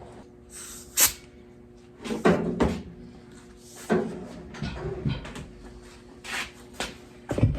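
A string of irregular knocks and clunks from equipment being handled and set down, some eight in all, over a faint steady hum.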